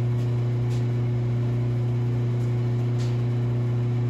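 A steady, even low hum from a running electric motor or fan, unchanging throughout, with a few faint soft sounds of oil being poured from a jug into the engine.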